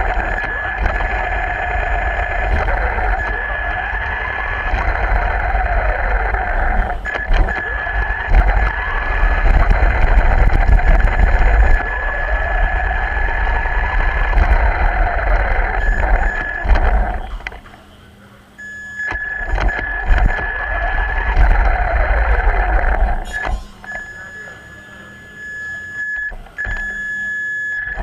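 RC car's motor and drivetrain whining as it drives over concrete, the pitch rising and falling with its speed, over a heavy rumble from the wheels, heard from a camera riding on the car. The sound cuts out almost entirely for about a second a little past halfway and runs quieter for a few seconds near the end.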